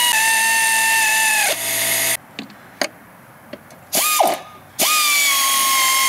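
Power drill spinning a socket to run in the alternator's top mounting bolt. The motor's steady whine sinks in pitch just before it stops about two seconds in, as the bolt takes up load. After a pause with a few clicks, it spins up again, briefly and then for a longer run.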